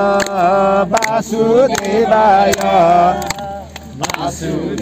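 A group of voices singing a Hindu devotional bhajan in Nepali, long held melodic lines, over a steady beat of sharp percussion strikes.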